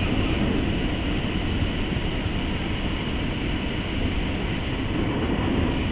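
Hot air balloon's propane burner firing in one long, steady blast: a loud, even roar.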